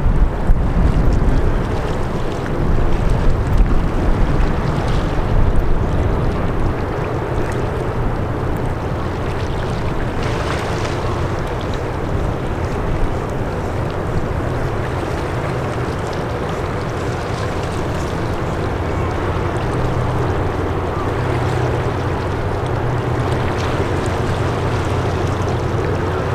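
A large ship's engines droning steadily as it passes, with gusts of wind on the microphone in the first few seconds.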